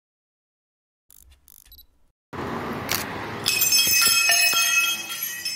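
Hanging metal temple bell rung repeatedly, each strike ringing on in several steady high tones over a noisy background. The ringing starts about two seconds in and builds to its loudest about halfway through.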